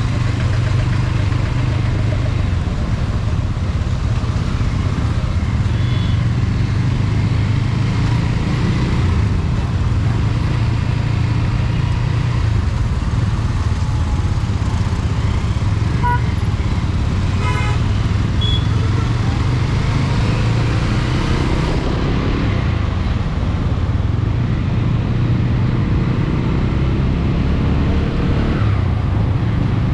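TVS Apache RTR 200 4V's single-cylinder engine running steadily under way, with road and traffic noise around it. A short horn-like toot sounds about sixteen seconds in.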